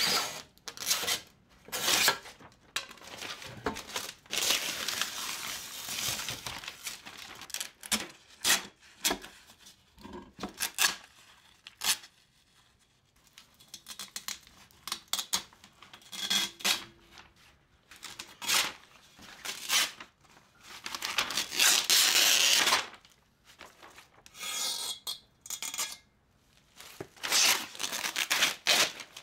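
Screen-printing mesh being cut with a knife, then ripped and peeled off its aluminum frame: a run of short, scratchy rips, with two longer tears, one a few seconds in and one past the twenty-second mark. There is crinkling as the loose mesh is pulled away.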